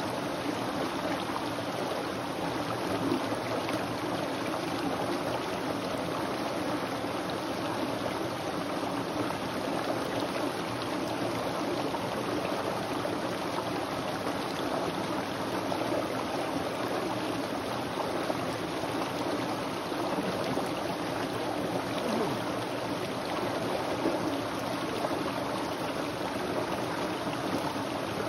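Small rocky brook running steadily, water splashing down a low cascade between boulders.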